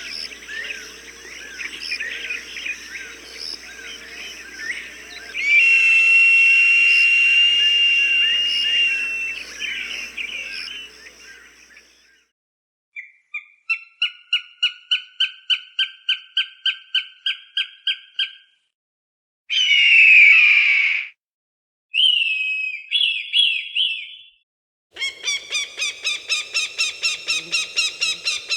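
Recorded hawk calls, cut together one after another. First comes dense chirping with a long held whistle. Then a run of sharp repeated notes about three a second, a single harsh scream, a few short calls, and a faster run of repeated notes near the end.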